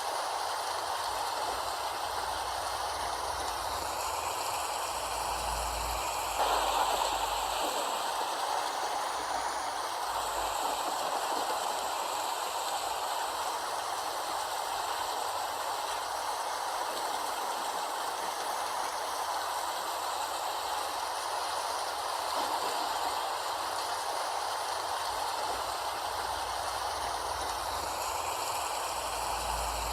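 Steady rainfall, an even hiss with no breaks, with a slight sudden rise in level about six seconds in.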